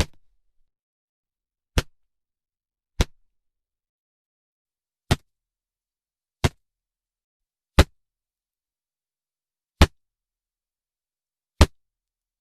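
A series of eight short, sharp cartoon-style hit sound effects, one after another at uneven gaps of one to two seconds, with dead silence between them.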